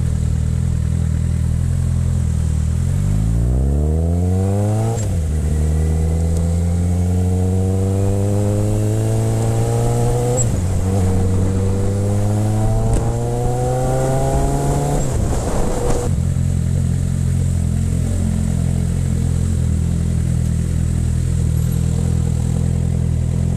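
Sport motorcycle engine idling, then pulling away with the revs rising through three gears and two upshifts. The throttle is shut about two-thirds of the way through and the engine settles back to a steady idle.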